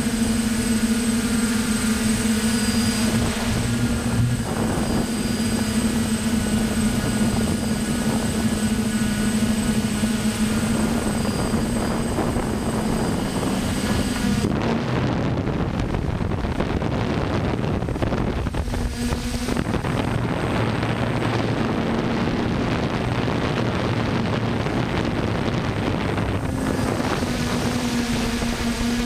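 DJI F550 hexacopter's six brushless motors and propellers humming steadily in flight, heard from the camera mounted on the craft. About halfway through, the hum gives way to a rougher noise of wind on the microphone, and the hum returns in stretches near the end.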